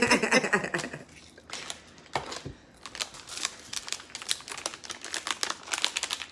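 Small plastic capsule jars of acrylic powder being handled and sorted: rapid, irregular light clicking and clattering, after a short laugh at the start.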